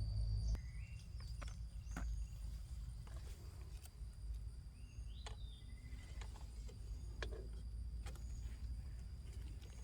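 Light crackling and snapping of someone moving and picking through forest leaf litter, with scattered short clicks over a steady high insect whine and a few short chirps.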